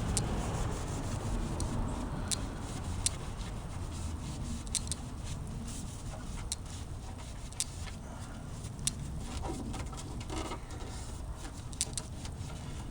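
Paper towel wiping and rubbing over a plastic turn-signal lens to clean off residue, with scattered small clicks and a low rumble underneath.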